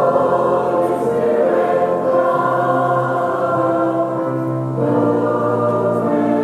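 Church liturgical choir singing a hymn in harmony, holding long sustained chords, with a new phrase coming in about five seconds in.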